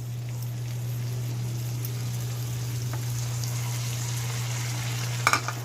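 Hot water poured into a pan of fried onion-tomato masala with peas and paneer, sizzling and bubbling as it hits the hot oil; the hiss builds from about two seconds in, over a steady low hum.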